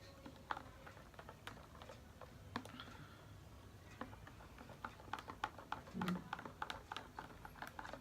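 A spoon clinking against the side of a small glass while stirring whey protein powder into a drink: light, irregular clicks, sparse at first and coming quicker in the second half, with one duller knock about six seconds in.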